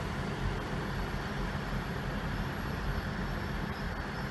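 Class 158 diesel multiple unit running at the platform, a steady diesel rumble with even noise above it.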